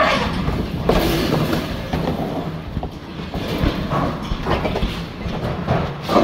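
Pigs grunting and squealing in short calls while being herded through a hog barn, over a constant clatter and rattle.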